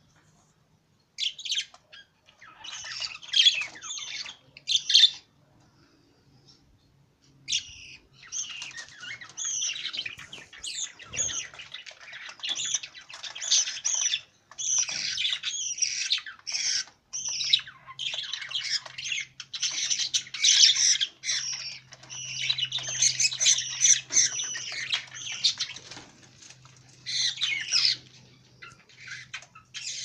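Budgerigars chattering and squawking: a few short bursts in the first five seconds, a pause of about two seconds, then almost unbroken chatter.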